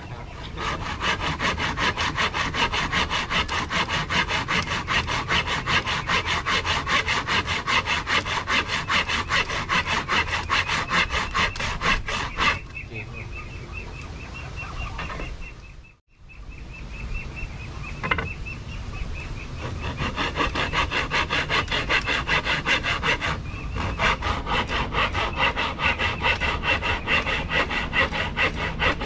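Hand saw cutting wood in fast, even strokes. The sawing stops for a few seconds near the middle, then starts again.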